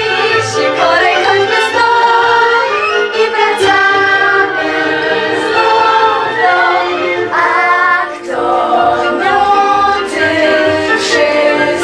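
Music with a choir singing over an instrumental accompaniment that has a regular beat.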